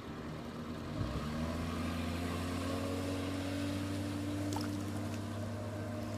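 1959 Johnson Super Seahorse 35 hp two-stroke twin outboard running at low speed, then throttled up about a second in and holding a steady, louder note as the small fiberglass boat gets up on plane.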